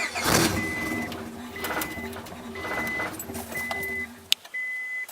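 A car's warning chime beeping steadily, about once a second, with a low mechanical rumble underneath that stops about four seconds in and a single sharp click shortly after.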